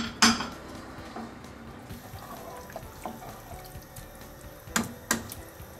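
Spoon stirring sauce in a cooking pan, knocking against the pan twice at the start and twice again near the end, with softer scraping and wet stirring in between.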